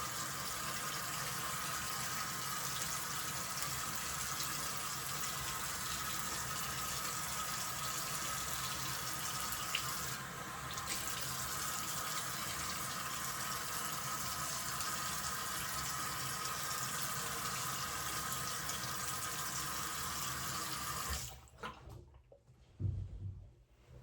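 Water tap running steadily into a sink, shut off about 21 seconds in, followed by a few soft low knocks.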